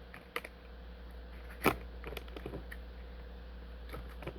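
Light clicks and taps of small hard objects being handled, with one sharper knock a little under two seconds in, over a faint steady hum.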